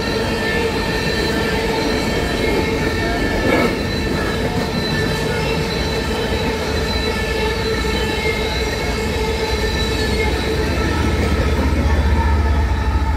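Empty grain train's covered hopper cars rolling past at speed: a steady rolling rumble with continuous high squealing and ringing from the wheels. A deep rumble grows louder near the end.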